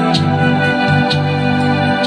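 Pan flute played live over a recorded accompaniment from a small amplifier, with held melody notes above a steady bass line.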